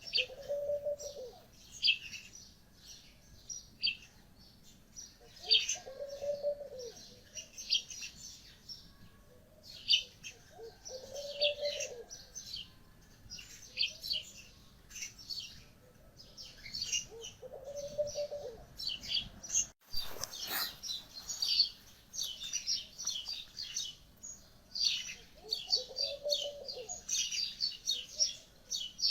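Small birds chirping in irregular bursts, with a short, lower call repeating every five or six seconds.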